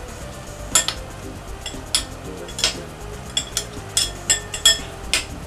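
Metal spoons clinking against a glass mixing bowl as minced meat is scooped out: about nine or ten sharp, irregular clinks, some ringing briefly.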